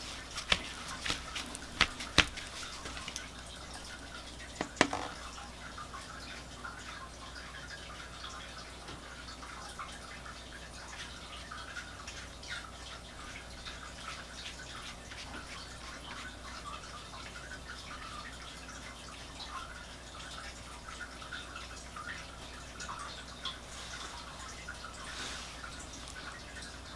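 A brush working wet watercolour on paper: faint, soft brushing and dabbing strokes, with a few sharp taps in the first five seconds.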